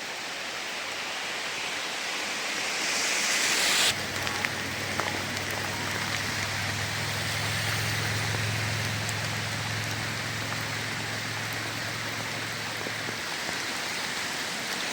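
Steady rain falling, heard as an even hiss. About four seconds in, a low steady hum joins it and fades out near the end.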